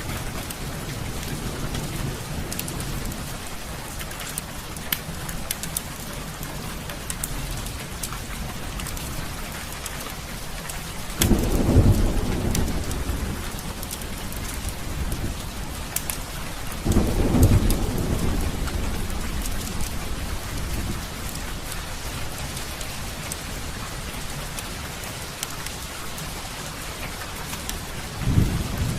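Heavy rain falling steadily, with many short sharp ticks through it. Deep thunder rumbles swell up about eleven seconds in, again about seventeen seconds in, and once more near the end.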